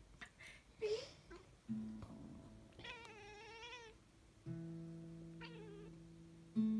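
Siamese cat yowling: a short call, then one longer wavering call about three seconds in, and another short call later. Under it, a few slow single musical notes start sharply and ring out.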